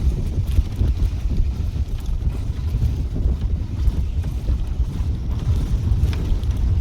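Open safari jeep driving along a forest track: a steady low rumble of engine and tyres, with wind buffeting the microphone.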